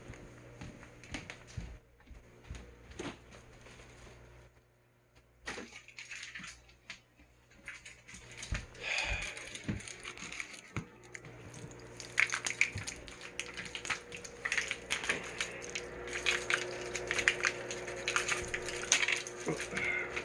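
Scattered clicks, taps and rattles of small objects being handled, quiet for a moment early on and growing busier in the second half, over a steady low hum.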